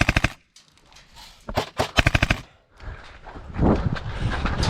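Airsoft MP7 gas-blowback rifle on an HPA air line firing two short full-auto bursts, a rapid even clatter of shots, the first right at the start and the second about one and a half seconds in. A rougher, noisier stretch without clear shots follows near the end.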